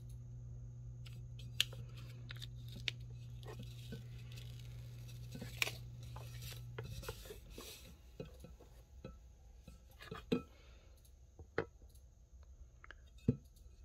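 Hands smoothing a clear printed decal onto a glass cylinder: soft rubbing and crinkling with scattered small clicks. In the second half come a few sharper light knocks as the glass is handled and lifted.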